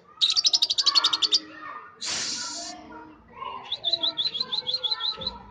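Young lovebird, about three months old, practising its ngekek chatter: a fast trilled run of high chirps, a short harsh rasp, then a slower string of rising chirps.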